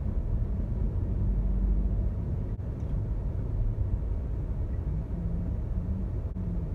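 Car driving slowly, heard from inside the cabin: a steady low rumble of engine and road noise with a faint engine hum.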